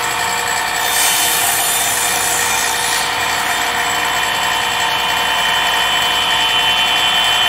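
Craftsman cordless circular saw running steadily at full speed, its blade cutting through a cardboard box.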